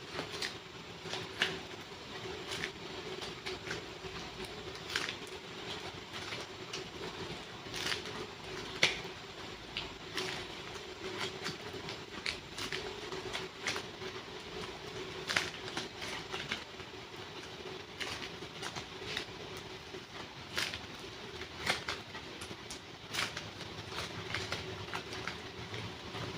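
Soft super clay being handled and stretched, giving irregular sticky clicks and pops, a sharp one every second or so, over a steady low hum.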